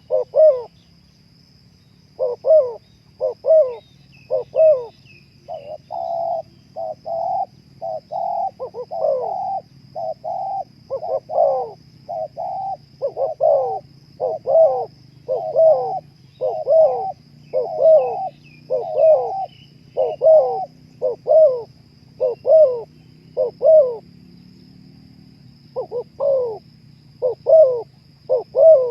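Spotted dove cooing over and over, a long run of short coo notes in phrases broken by brief pauses. Faint chirps of small birds and a steady thin high whine sit behind it.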